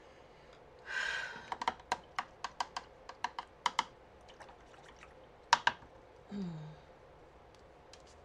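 A quick run of light, sharp clicks and taps, about a dozen in two and a half seconds after a brief rustle, with two louder clicks a couple of seconds later.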